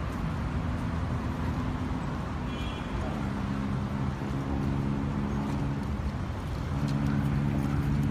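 Road traffic noise with a nearby vehicle engine running: a steady low hum that grows a little louder near the end.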